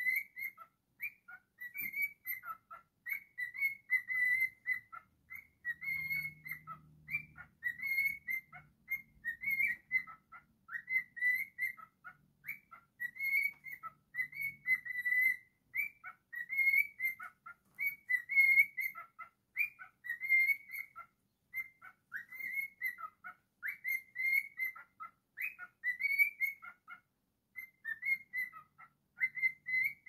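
Cockatiel whistling its song: a long run of short, clear whistled notes near one pitch, several a second, many with quick slides up or down.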